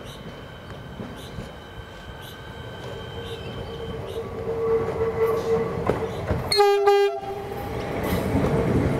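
Siemens Nexas electric multiple unit drawing into a station, its running rising from a low rumble with a steady whine as it nears. About seven seconds in it sounds its horn in two short blasts.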